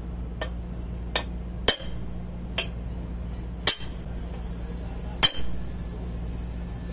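Hammer blows on a steel drift held against the winch shaft, driving the shaft and its bearing into the crane winch's gear housing: six sharp metallic strikes, three of them loud and spaced about two seconds apart, the last two ringing briefly.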